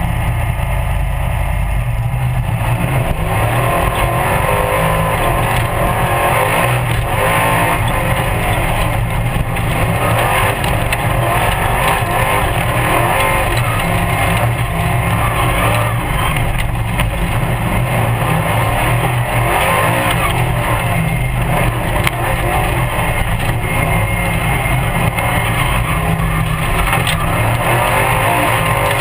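Formula Offroad buggy's engine running hard under load, heard loud and steady from inside the open cockpit, mixed with the rattle and rumble of the car working over rough dirt.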